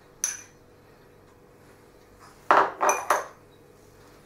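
A metal spoon clinking against a small bowl: one clink about a quarter second in, then three quick, louder clinks about two and a half seconds in.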